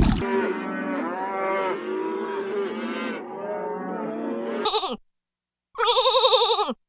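Many farm animals calling at once in overlapping cries. After a brief gap comes a short call, then a single loud, quavering bleat of about a second.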